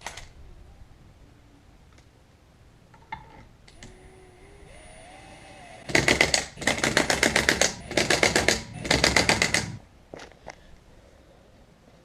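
Impact wrench hammering on wheel lug bolts in four short rattling bursts, after a faint rising whir as it spins up.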